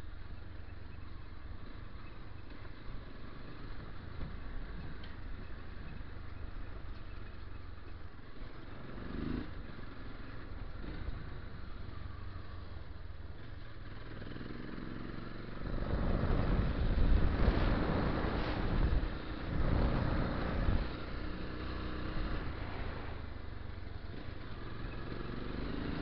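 Motorcycle engine running as the bike is ridden, over a steady low rumble of wind on the camera microphone; the engine grows louder about two-thirds of the way in for several seconds before settling back.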